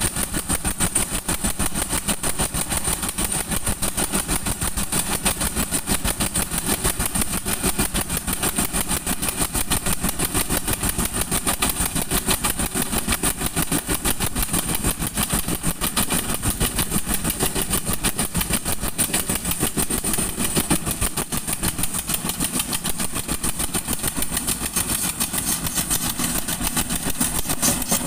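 Engine of a road-construction machine running steadily at a constant speed, with a fast, even firing pulse.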